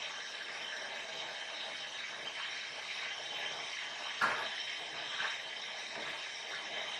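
Vegetable soup being stirred in a large aluminium pot on a gas burner, under a steady hiss, with a sharp knock of the spoon against the pot about four seconds in and a lighter one a second later.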